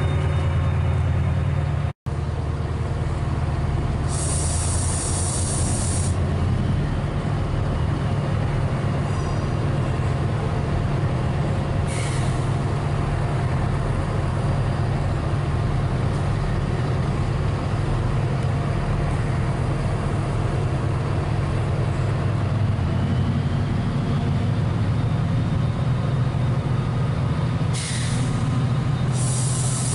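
Steady low rumble of idling diesel train engines, with short loud hisses of compressed air venting from the train's air brakes: one lasting about two seconds about four seconds in, a brief one about twelve seconds in, and two more near the end.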